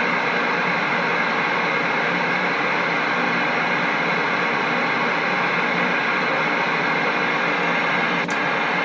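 Galaxy CB radio's speaker giving out a steady, loud static hiss with faint steady tones through it: an open channel of band noise with no voice on it. Two faint clicks come near the end.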